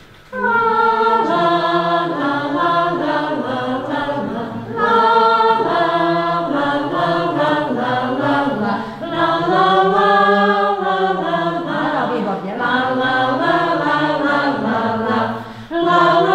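Small choir of adults, mostly women's voices, singing a cappella in phrases with short breaks between them. The singing starts about half a second in.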